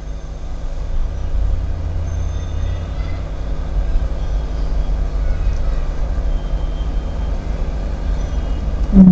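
Steady low rumble with a faint hum above it, and no clear distinct events.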